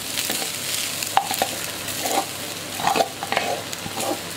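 Egg and vegetables sizzling steadily in a wok as cooked rice is tipped in from a pot, with scattered scrapes and knocks of a utensil against the pot and pan.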